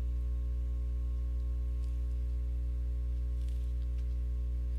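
Steady low electrical hum with a few evenly spaced overtones, the mains hum picked up by a computer recording microphone, with a couple of faint mouse clicks.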